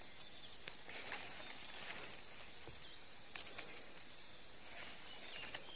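Forest insects keeping up a steady high-pitched drone, with a few faint clicks and rustles as mushrooms are cut with a knife and handled.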